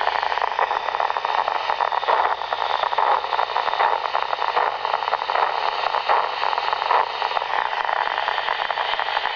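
Nerve spikes from a severed American cockroach leg, amplified and played through a small speaker as dense crackling static. It is a burst of firing as air blown on the leg bends its hairs, the nerve's rate code.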